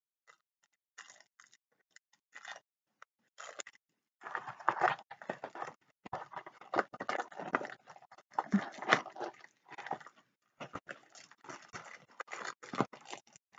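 Clear plastic sleeve crinkling and rustling in irregular crackles as a rolled diamond-painting canvas is handled and slid into it, sparse at first and denser from about four seconds in.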